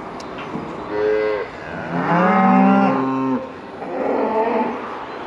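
Cattle bawling: a short call about a second in, then a longer, louder one about two seconds in that drops in pitch as it ends.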